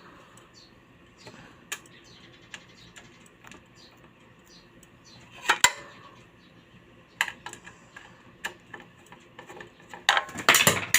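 Irregular light metallic clicks and knocks from handling the heat sealer's metal casing and screws during reassembly, with a louder clatter about halfway through and a busier run of knocks near the end.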